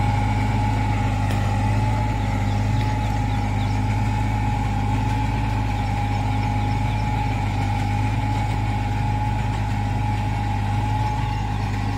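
Compact tractor's diesel engine running steadily under load, driving a 30-blade rotavator that churns the soil, with a steady whine above the engine note.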